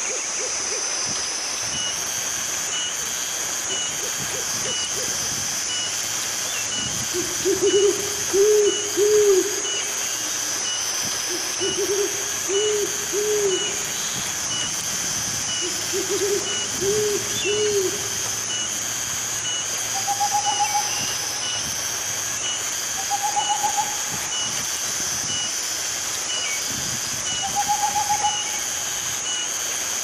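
Owl hooting in three runs of three or four low hoots, then three shorter, higher-pitched runs in the second half. A steady high hiss with faint regular ticking runs underneath.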